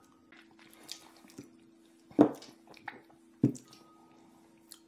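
Small mouth and liquid sounds of a palate-cleansing sip from a glass, then two sharp knocks about a second apart as glasses are set down on the wooden tasting tray. A faint steady hum sits underneath.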